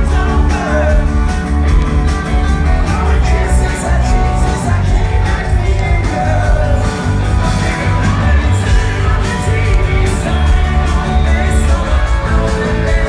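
Rock band playing loud and live: electric guitar, bass and drums, with a male lead singer.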